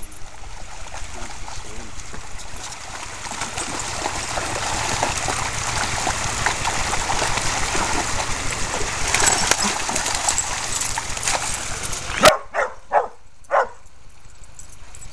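Dogs splashing and scuffling in a shallow creek, a dense noise full of small clicks and splashes that grows louder over the first several seconds. Near the end it drops away suddenly, and a dog barks four times in quick succession.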